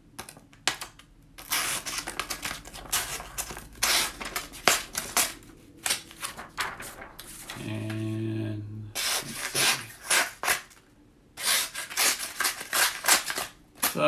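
Printer paper being cut with the short blade of a Leatherman Free T4 multitool: quick runs of scratchy slicing strokes and crinkling of the sheet as the blade saws and tears through it, with two short pauses.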